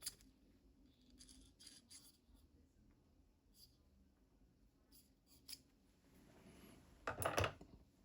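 Small metal lathe accessories being handled: scattered light clicks and scrapes, with a louder clatter of metal parts about seven seconds in.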